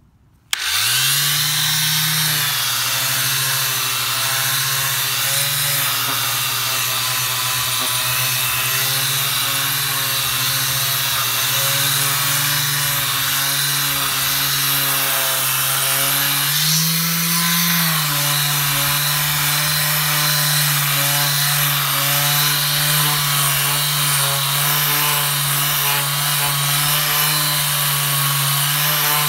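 Drill Master 120-volt orbital hand sander switched on about half a second in: its motor spins up, then runs with a steady hum and the hiss of 150-grit paper rubbing over the stained wood of a bed frame. Around two thirds of the way through, the hum briefly rises in pitch, then settles back.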